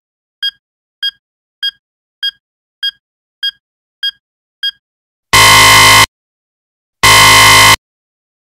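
Electronic beeps of a fake radiation-detector phone app: eight short, evenly spaced beeps about every 0.6 s, then from about five seconds in two long, loud buzzer blasts, the alarm that signals radiation has been detected.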